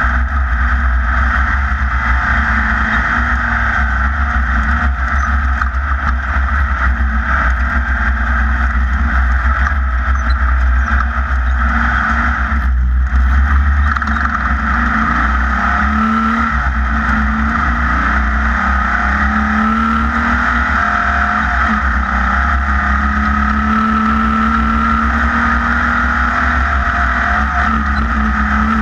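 Off-road race vehicle's engine running at speed under load over a heavy low rumble, its note climbing gradually in the second half.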